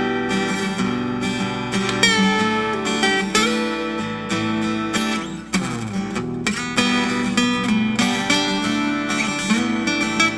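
Background music: an acoustic guitar piece, plucked and strummed.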